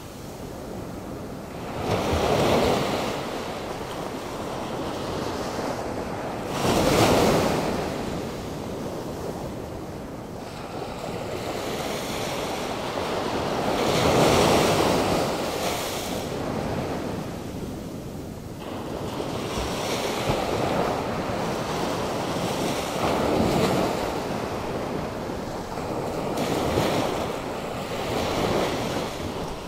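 Atlantic Ocean surf breaking on the shore, rough from a passing hurricane: waves crash in loud surges every few seconds over a continuous wash of water.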